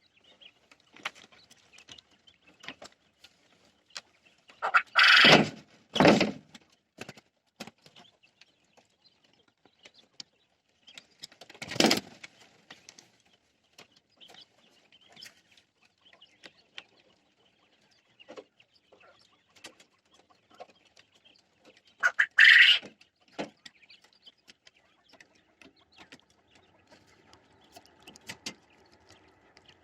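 Jumbo quail, a large strain of Japanese quail, calling in a flock: a few loud short calls about five, six, twelve and twenty-two seconds in, over faint scattered chirps and clicks.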